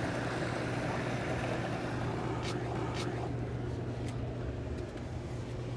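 Hot tub jets running: water churning under the steady low hum of the jet pump, with two short clicks near the middle.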